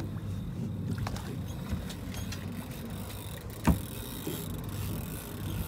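Boat engine idling steadily, with a single sharp thump about three and a half seconds in.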